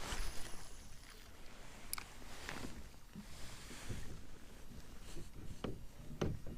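Scattered small knocks and splashes in and around a kayak, a handful of short sharp sounds over a steady outdoor hiss, the loudest near the end.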